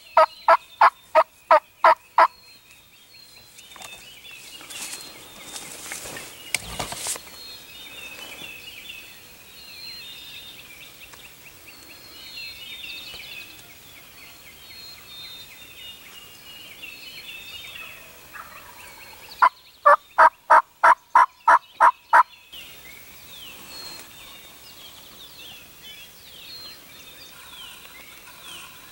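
Hen turkey yelps from a hunter's turkey call: a run of loud, evenly spaced yelps at about four a second ends just after the start, and another run of about ten begins about twenty seconds in. Songbirds chirp faintly in between.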